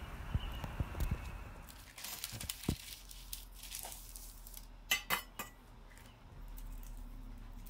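Kitchen handling sounds: parchment paper rustling, then a round aluminium cake pan clinking as it is handled and set down, with a quick cluster of sharp clinks about five seconds in.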